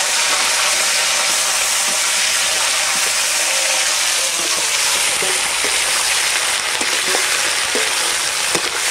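Pieces of country chicken frying in hot mustard oil in a kadai: a loud, steady sizzle.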